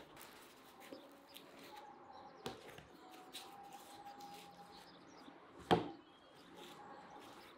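Crusty flatbread being torn apart by hand: small crackles of the crust, a sharper crack about two and a half seconds in and a loud crack just before six seconds.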